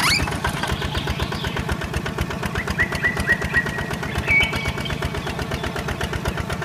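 Small engine of a homemade model hand tractor running steadily with a rapid, even chugging while it tows another model tractor by rope up a plank ramp. A few short high chirps sound around the middle.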